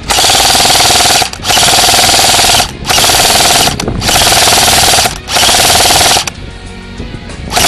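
Airsoft electric gun firing on full auto in five long bursts of about a second each, a steady buzzing rattle with short pauses between bursts.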